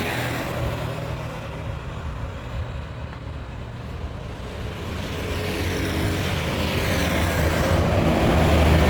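Bus engine running: the low rumble eases in the middle, then grows steadily louder over the last few seconds.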